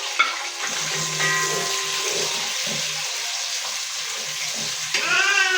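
Sliced onions sizzling in hot cooking oil in a pot, a steady frying hiss, with a short voice-like sound near the end.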